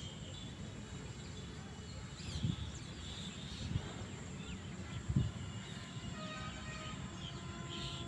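Outdoor ambience with a steady low rumble and three dull thumps, and a few faint bird chirps a couple of seconds in. Background music with a simple melody begins about six seconds in.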